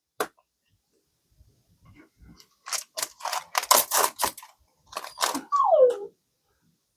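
Foil trading-card pack being handled and torn open: a run of short crinkly crackles. Near the end comes a brief squeak that falls in pitch.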